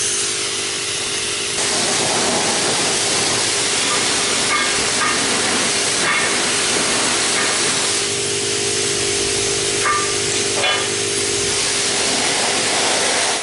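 Self-serve car wash pressure-washer wand blasting water onto small parts on a concrete floor: a loud, steady hiss of spray over a steady hum, getting louder a second and a half in.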